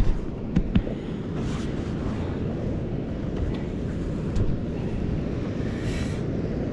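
Wind buffeting the microphone: a steady low rumble, with a few light knocks in the first second and one more a little past four seconds.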